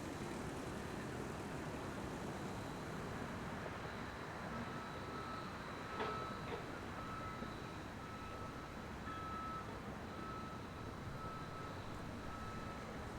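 Reversing alarm of construction equipment beeping steadily, a little more than once a second, starting a few seconds in over a steady noise bed. There is a sharp knock about six seconds in, with a smaller one just after.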